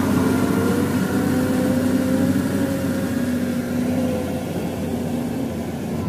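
Volvo EW205D wheeled excavator's diesel engine running under load as the machine climbs a gravel slope, its note holding steady with small rises and falls in pitch and easing slightly about four seconds in.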